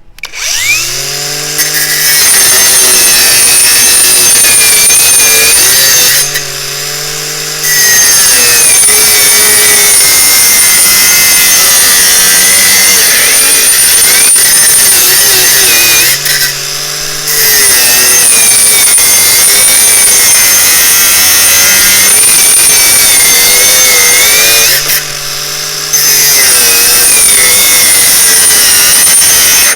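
Parkside PWSAP 20-Li C3 cordless brushless angle grinder spinning up with a rising whine, then cutting steel with a loud, high-pitched grind. Three times it comes briefly off the cut, the motor whining freely for about a second, before biting in again.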